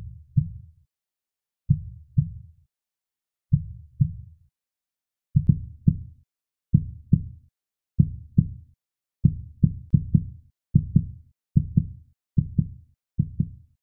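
Heartbeat-like thumps in pairs, low and dying away quickly, slow at first and quickening from about five seconds in, building into the soundtrack's song.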